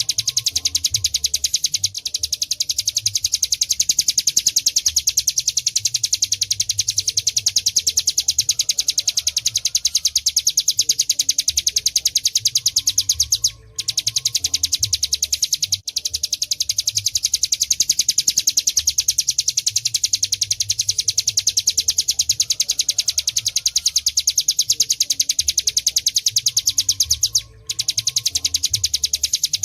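Hill prinia (ciplek gunung) singing its rapid, unbroken chattering 'ghebren' trill, high-pitched and loud. It stops for an instant about halfway through and again near the end.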